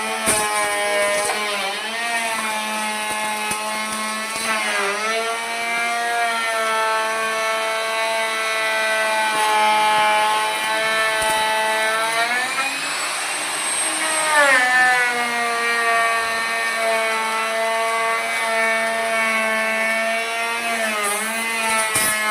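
Electric power tool working wood: a steady motor whine whose pitch dips briefly a few times as it takes cuts. In the middle it sags for about two seconds under a hissing, rasping cut.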